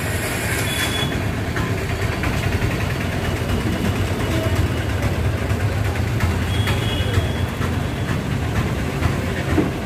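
Busy street ambience: a steady low rumble of traffic and idling engines, with faint background voices and a couple of short high beeps.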